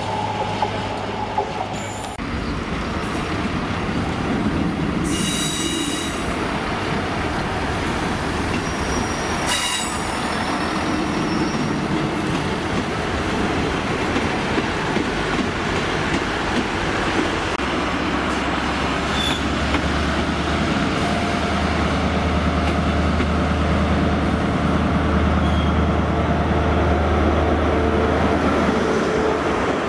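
Trains running through a station, with wheels squealing on the rails and two sharp squeals early on. In the second half a low, steady diesel drone builds as a GWR High Speed Train (InterCity 125) power car runs along the platform.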